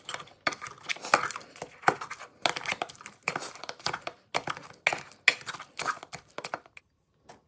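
Wire potato masher mashing ripe avocado in a stainless steel bowl: repeated squelching strokes, about two or three a second, with the metal knocking against the bowl. The strokes stop shortly before the end.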